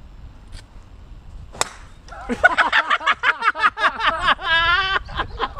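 A golf club strikes a ball with one sharp crack about a second and a half in. A man's voice follows with a quick, high-pitched string of calls and ends on a held cry.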